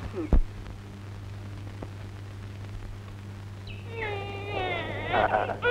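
Infant crying in drawn-out wails that waver up and down in pitch, beginning about two-thirds of the way in, over a low steady hum.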